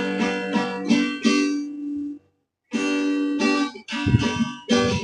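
Acoustic guitar chord strummed repeatedly and ringing clearly, played with the fretting fingers pressed down firmly. The strumming stops briefly a little over two seconds in, then starts again.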